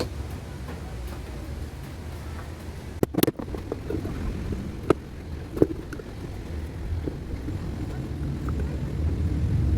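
A few sharp clicks and knocks from stand fan motor parts being handled, the loudest about three seconds in and two smaller ones a couple of seconds later, over a steady low rumble.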